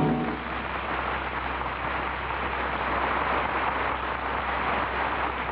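Steady hiss and crackle of an old transcription disc's surface noise over a low hum, in a gap with no speech or music. The tail of an orchestral chord dies away just at the start.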